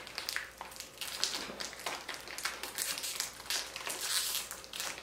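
Plastic snack-bag wrapper crinkling in irregular, crackly rustles as hands pull and twist at its sealed top; the bag resists and does not tear open.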